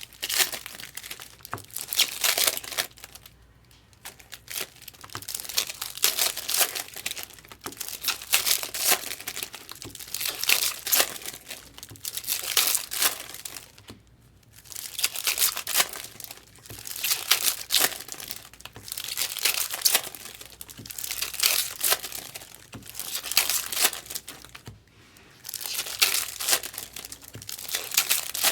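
Foil trading-card pack wrappers crinkling and tearing as packs are ripped open, in repeated bursts a second or two long with short pauses between them.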